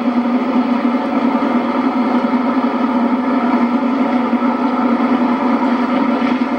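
A motorboat's engine running steadily under way, a constant droning hum, heard as played back through a television's speaker.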